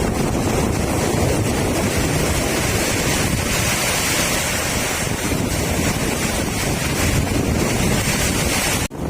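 Strong storm wind blowing hard and buffeting the microphone as a loud, steady rush of noise. It cuts out for a moment near the end.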